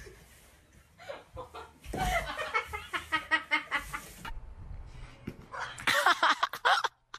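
People laughing in high-pitched, cackling bursts, in two spells: one starting about a second in, another near the end after a short lull.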